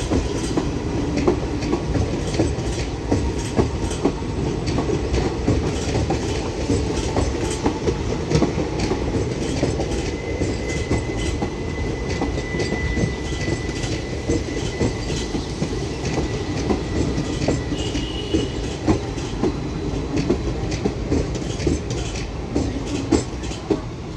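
Indian Railways passenger coaches rolling past: a steady rumble with rapid, irregular clickety-clack of the wheels over rail joints. A faint thin whine runs for several seconds in the middle.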